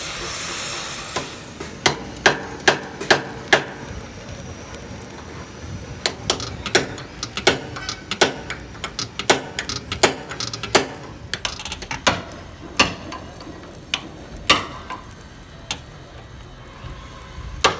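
A long series of sharp metal-on-metal strikes on the excavator's heated steel boom pin end, irregularly spaced at about one or two a second. A gas torch's hiss dies away in the first second or so.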